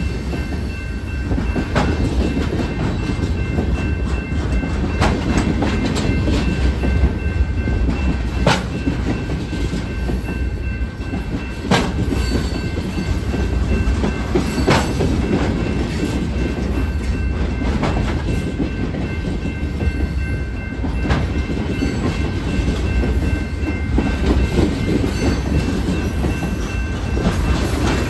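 Loaded freight flatcars rolling past: a steady low rumble with irregular clicks as the wheels cross rail joints, and a faint high steady whine underneath.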